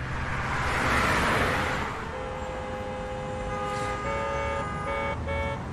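Car sound effect: a steady engine rumble with a passing whoosh about a second in, then sustained tooting horn-like tones that change pitch a few times.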